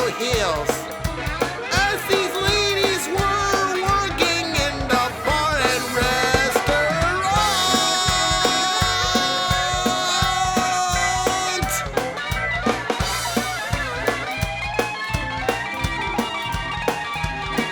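Music: a song with a steady beat and bass, and a melody gliding over it. A high sustained note is held in the middle of the stretch.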